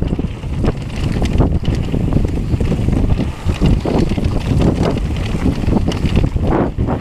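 Mountain bike descending a dirt singletrack at speed: heavy wind noise buffeting the microphone over the rumble of tyres on dirt, with frequent rattles and knocks as the bike hits bumps.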